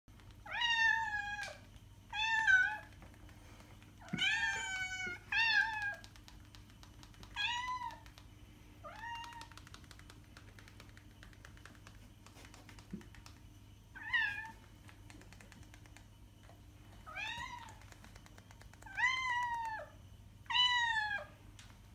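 Domestic cat meowing over and over: about ten short meows, in pairs and singles, each falling in pitch at its end, with a pause of several seconds midway.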